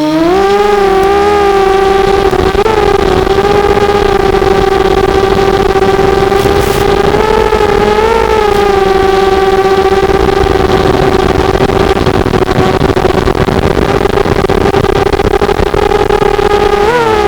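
FPV250 quadcopter's four RCX1804 2400kv brushless motors and propellers whining at a steady throttle: one held pitch with its overtones. The pitch climbs back up from a dip at the very start, and wavers briefly about eight seconds in and again near the end.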